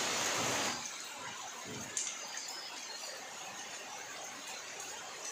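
Rain falling on a flooded yard, a steady hiss that drops noticeably in level about a second in. A single sharp click about two seconds in.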